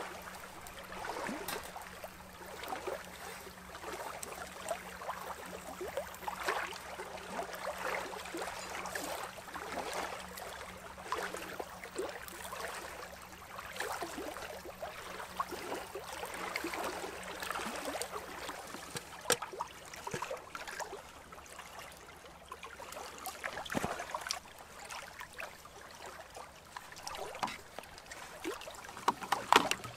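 Small waves lapping and splashing irregularly against the shore, with scattered sharp crackles from a wood campfire. There are a few louder knocks near the end.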